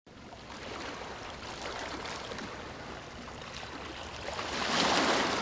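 Ambient sound of water washing and lapping, like waves, fading in at the start and swelling about four and a half seconds in.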